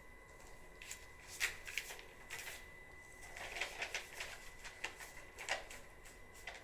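A scattered run of short, soft rustles and clicks over a faint steady high-pitched tone, busiest in the middle.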